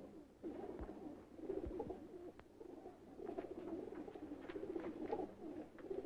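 Pigeons cooing softly and continuously, with a couple of faint low thumps early on.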